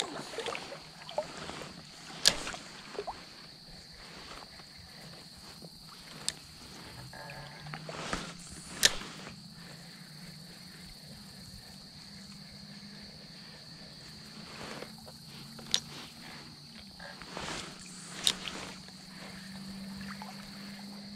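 Spinning reel cranked during a retrieve, a faint steady low whir, broken by several sharp clicks and knocks from handling the rod and reel. Faint creek water runs underneath.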